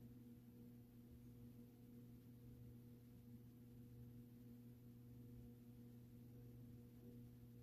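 Near silence with a faint steady hum: the movie's soundtrack is muted while the DVD recorder fast-forwards.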